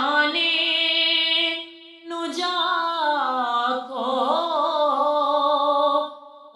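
A woman singing a naat (Islamic devotional song) in long drawn-out vowels: one held note, a short break about two seconds in, then a long phrase whose pitch wavers and glides before fading near the end.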